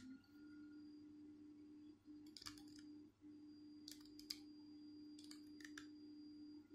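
Small plastic clicks as 3D-printed pen parts are slid and twisted together: a quick cluster of clicks a couple of seconds in, then a few single clicks later, over a faint steady hum.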